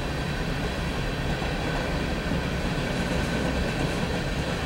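Covered hopper cars of a freight cement train rolling past, a steady rumble of steel wheels on the rails.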